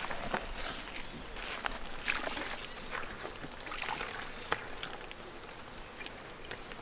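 A gloved hand mixing wet chocolate cake batter and milk in a large bowl: irregular wet squelches and sloshes that thin out after about five seconds.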